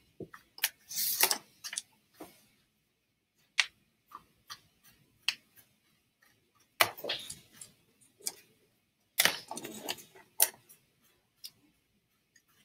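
Desk handling noise: scattered small clicks and knocks with a few short rubbing scrapes, as a pen and a TI-84 Plus CE graphing calculator are put down and moved off a paper notebook.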